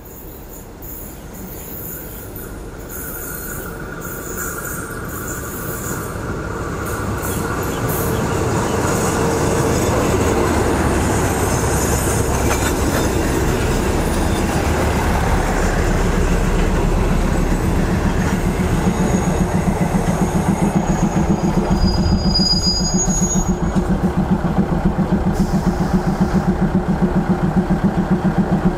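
Diesel railcar train approaching and pulling into the platform, growing louder over the first ten seconds. A few thin, high squeals come around two-thirds of the way through as it brakes, then the diesel engine throbs steadily as the train stands.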